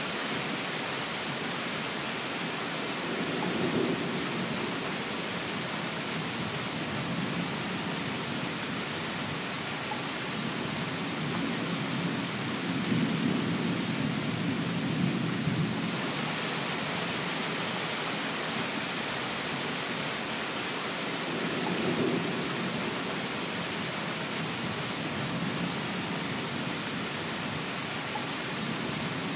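Steady rain, with low rumbles of thunder swelling and fading about four times, the longest around the middle.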